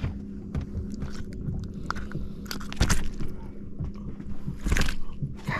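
Rustling, clicking and knocking as a speckled trout is handled and unhooked with pliers, with two louder knocks about three seconds and five seconds in, over a steady low hum.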